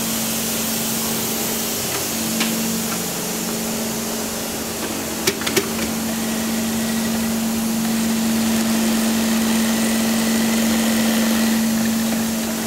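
FDM single-needle industrial sewing machine running at a steady speed while stitching a fabric panel: an even hum with hiss, broken briefly about two seconds in, and a few sharp clicks about two and a half and five and a half seconds in.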